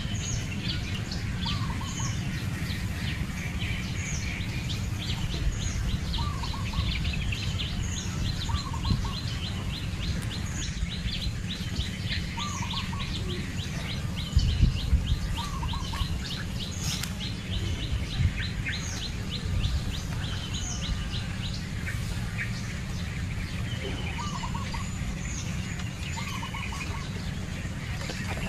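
Wild birds calling: short high chirps repeated every second or so, a long rapid trill of ticking notes through the first half, and lower paired chirps every few seconds. A steady low rumble lies underneath, with a few louder bumps about halfway.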